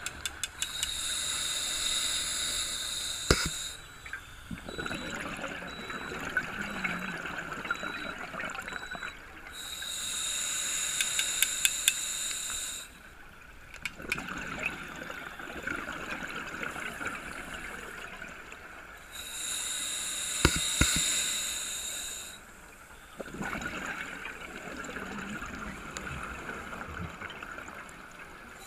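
Scuba diver breathing through a regulator underwater: three breaths about ten seconds apart, each a few seconds of bright hiss followed by a longer spell of bubbling, with a few sharp clicks.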